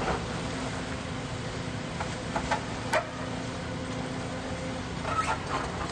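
Bulldozer engine running steadily while clearing rubble, with scattered sharp knocks and clanks of debris, the loudest about three seconds in.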